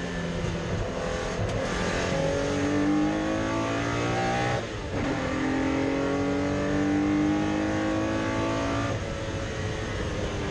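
Porsche 964 race car's air-cooled flat-six engine accelerating hard, its note rising through a gear, breaking briefly as it shifts up about halfway through, then rising again before dropping back near the end.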